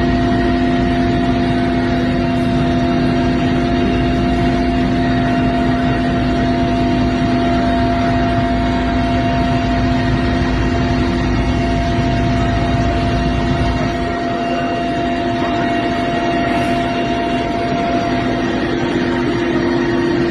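Helicopter in flight heard from inside the cabin: a steady engine and rotor drone with several constant tones over a rushing noise. The lowest rumble eases slightly about fourteen seconds in.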